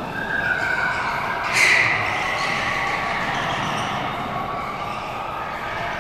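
Go-karts running on an indoor track: a steady mix of high motor whine and running noise from several karts, with a short sharp squeal about a second and a half in.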